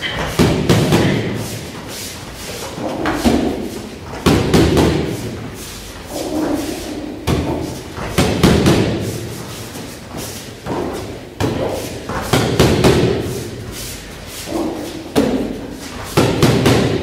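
Kicks and punches landing on handheld kickboxing pads with dull thuds, in repeated rounds of a front kick followed by a few quick punches, echoing in a large hall.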